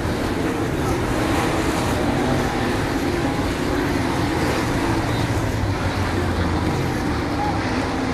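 410 sprint cars' methanol-burning V8 engines running hard as the cars circle the dirt oval, a steady loud engine noise with cars sweeping past.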